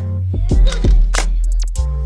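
Background music with deep held bass notes and sharp drum hits.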